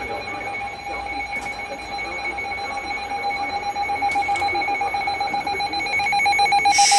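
Electronic alert alarm going off for a severe thunderstorm warning: several steady beeping tones pulsing rapidly without a break, growing gradually louder.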